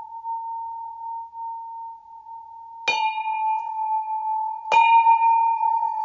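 Sculpted bell ringing with one steady, wavering tone, struck twice about two seconds apart; each strike adds bright higher tones that fade, the second strike louder.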